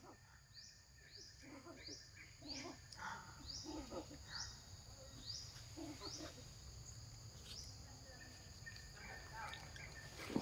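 Faint forest ambience: a high, short chirp that rises in pitch, repeated about once or twice a second, over a steady high insect drone.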